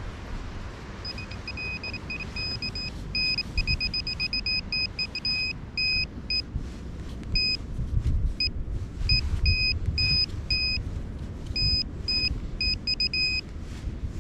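Handheld metal-detecting pinpointer beeping as it is probed through loose beach sand, short high beeps in quick runs at first, then more spaced out with brief gaps. The beeping signals metal close to the probe's tip, here a coin buried in the hole. A low rumble runs underneath.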